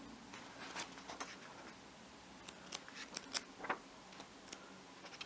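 Pages of a trade paperback comic being leafed through by hand: faint paper rustling with a scattering of short, crisp flicks, most of them in the second half.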